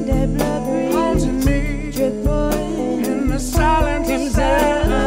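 Live soul-blues band: a woman singing lead with a wavering vibrato over electric guitar and a drum kit.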